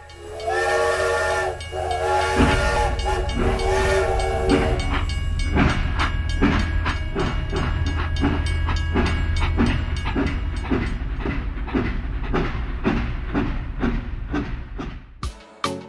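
Train horn sounding three times, then a steady rumble with a rhythmic clickety-clack of wheels over rail joints, about three clacks a second, cutting off suddenly near the end.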